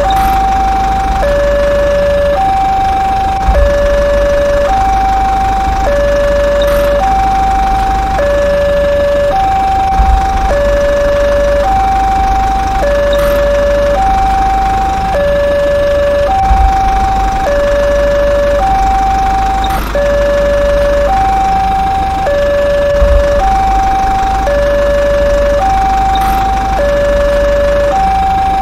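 Two-tone hi-lo siren sounding steadily, switching between a higher and a lower note with each note held about a second, and a soft thump about every three seconds.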